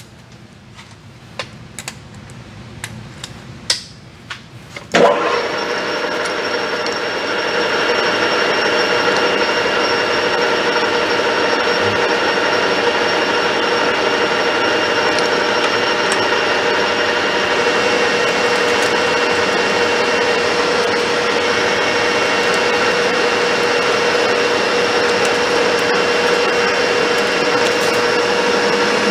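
A few light clicks, then a metal lathe's spindle starts up about five seconds in and runs steadily with a whine of several even tones.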